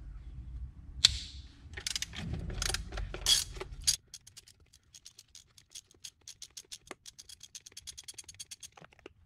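Hand ratchet loosening an intake-manifold bolt on a Ford 2.0 EcoBoost engine. Handling clatter and a sharp click come first, then from about four seconds a fast, even run of ratchet pawl clicks as the bolt is spun out, stopping near the end.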